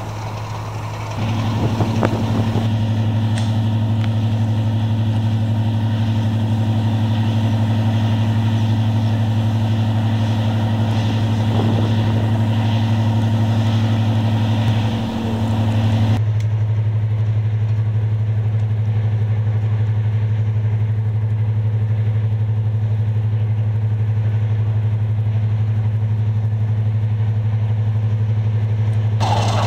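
Class 55 Deltic diesel locomotive running at rest on its twin Napier Deltic two-stroke opposed-piston engines: a steady, loud, low drone with a higher hum above it.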